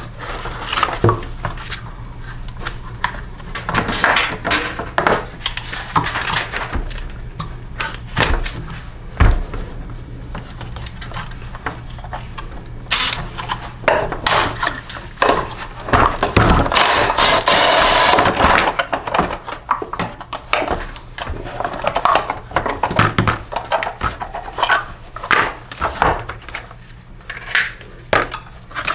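Irregular metallic clinks, knocks and scraping of hand tools against push-mower parts as a part is pried apart and worked loose, with a longer noisy stretch in the middle.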